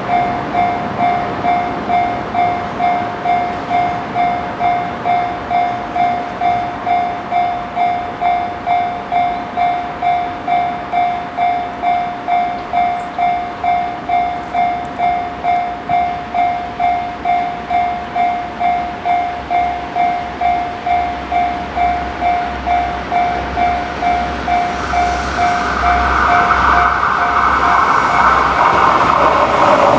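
Level-crossing warning bell ringing steadily, about two strikes a second. From about 25 s in, the noise of the approaching EF81 electric locomotive and its train builds up and drowns the bell.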